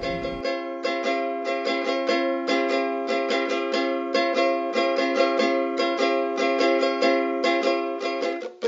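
Background music of quickly picked plucked strings, with a steady run of bright notes.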